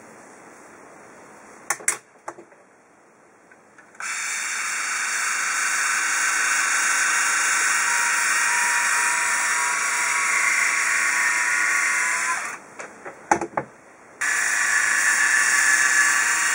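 Instyler rotating-barrel hot styler running, its spinning barrel and bristles whirring steadily through a section of hair. It starts about four seconds in after a few sharp clicks, stops briefly with more clicks near the end, then runs again.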